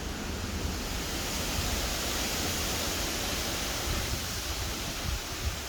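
Steady rain and wind of a storm, with wind rumbling on the microphone.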